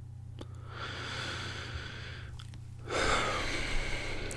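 A man drawing a slow breath in, then letting out a long heavy sigh starting about three seconds in, the sound of someone upset and grieving. A low steady hum runs underneath.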